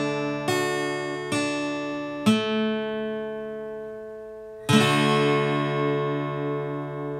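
Intro music: four acoustic guitar chords, each struck once and left to ring and fade, the last about four and a half seconds in.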